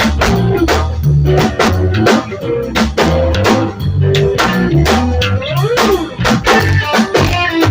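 Live band jamming: a drum kit keeps a steady beat of several hits a second under bass notes and guitar.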